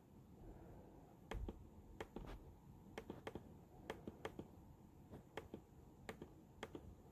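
Faint, irregular clicks, a few a second, from scrolling down a web page on a laptop, with a soft knock about a second and a half in.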